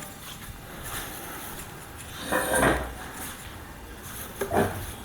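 Thin wooden board and tools being handled on a workbench: a short scrape a little past halfway, and a shorter, lighter one near the end.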